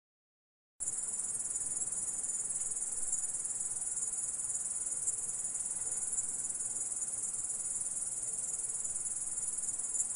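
Grasshopper stridulating: a continuous, dense high-pitched trill that starts abruptly out of silence about a second in.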